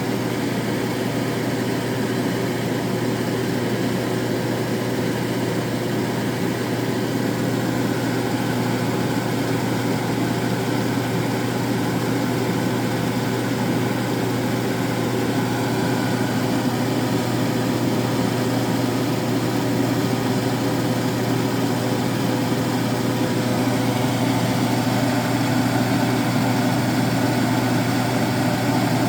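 A steady low mechanical hum with a constant drone and a hiss over it, running unchanged throughout.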